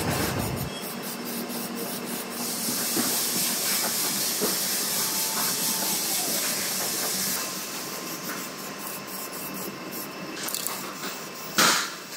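Aerosol spray-paint can hissing as paint is sprayed onto a steel chassis beam: steady for several seconds, then in shorter spurts. A short, louder burst comes near the end.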